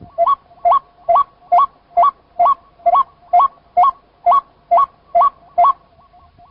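White-breasted waterhen calling: a loud two-note call, each note jumping up in pitch, repeated steadily about twice a second, with fainter calls of the same kind underneath. The loud series stops near the end, leaving only the fainter calls.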